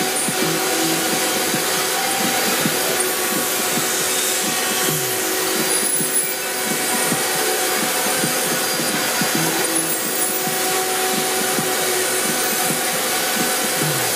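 CNC router spindle running steadily while its bit cuts grooves through a wood panel: a continuous rough cutting noise under a hum of several steady tones.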